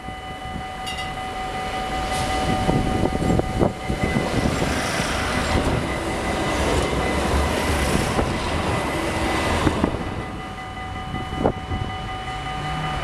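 Utrecht 5000-series articulated light-rail tram passing close by on ballasted track, its wheels rumbling and knocking on the rails. It grows louder over the first couple of seconds, stays loud while it goes by, and fades about ten seconds in.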